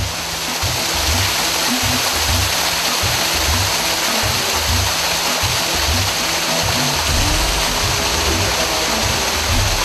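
Water rushing steadily as a small waterfall spills down rock beside a stone channel, over background music with a steady low beat about twice a second.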